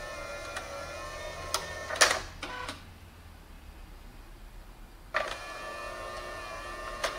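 Nikon Super Coolscan 5000 ED film scanner with SF-210 slide autofeeder running: a steady motor whine with scattered clicks and a loud clunk about two seconds in as the feeder moves slides. The whine then stops for about two seconds and starts again abruptly with a click, with another click near the end.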